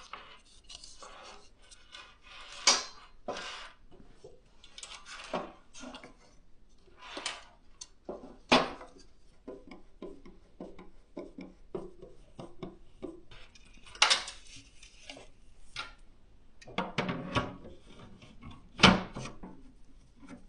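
Case fans and their mounting bracket being handled and fitted into a PC case: irregular clicks, knocks and scraping of plastic and metal parts, with a few sharper knocks.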